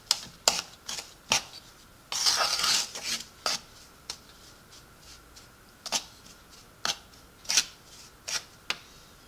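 A metal spoon stirring dry flour mix in a wooden bowl: irregular short scrapes and taps of the spoon against the wood, with a longer scrape about two seconds in.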